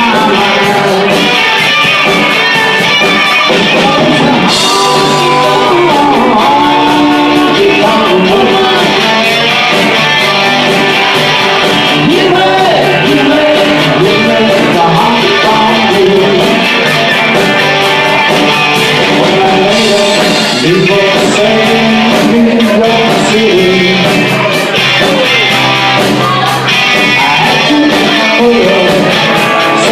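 A band playing a song, with guitar and a singing voice.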